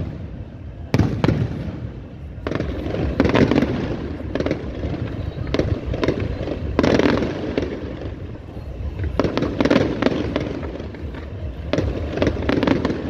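Aerial fireworks display: shells bursting in quick succession, sharp bangs about one to two seconds apart with crackling between them.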